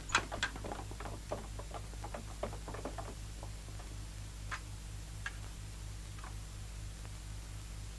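Faint footsteps and scuffs on a dirt yard over the first three seconds, then a few scattered single taps. Under them runs a low hum that pulses about four times a second.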